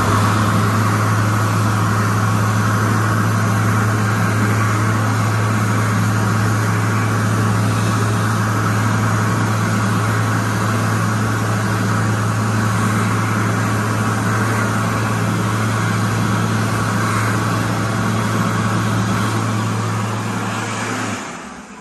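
Bobrick B-700 AirCraft hand dryer, set off by a hand under its nozzle, blowing steadily with a strong low hum. Near the end it shuts off and the fan winds down.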